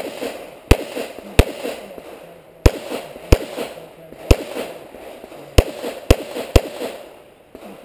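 Revolver gunshots as a shooter works through an IDPA stage. There are about nine sharp shots, spaced irregularly from about half a second to more than a second apart, each with a short echo.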